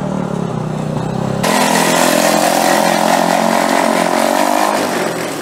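Small single-cylinder go-kart engine running at steady part-throttle as the kart circles the skidpad. About a second and a half in it abruptly becomes louder and higher, holds there, then eases off near the end.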